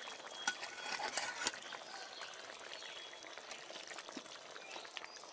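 Fish curry simmering and bubbling faintly in a metal kadai, with a few light clicks in the first second and a half as the pan is handled to take it off the fire.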